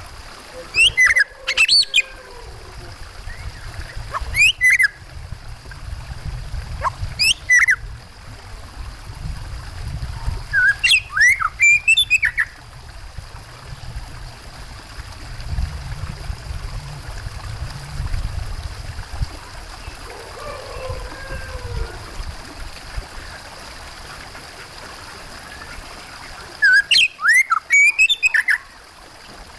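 Oriental magpie-robin (kacer) singing in five loud bursts of quick, sharply sliding notes, with long gaps between, over a steady low rush of running water.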